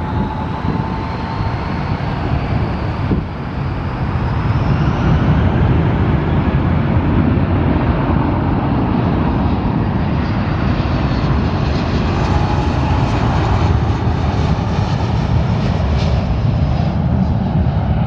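Jet airliner flying past: a loud, steady engine noise with a high whine rising in pitch over the first few seconds, growing louder about four seconds in.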